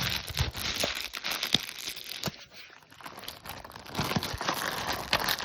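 Plastic crinkling and rustling with scattered small clicks and knocks as a smoke alarm and its packaging are handled, going quieter for a moment just past the middle.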